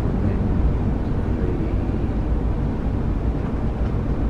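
Steady engine and road rumble heard from inside a moving coach bus.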